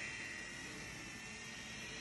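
Ridgid 18V cordless drill, its trigger locked on by a zip tie, running faintly at low speed and turning a homemade kart tire roller, with a thin steady whine over a soft hiss.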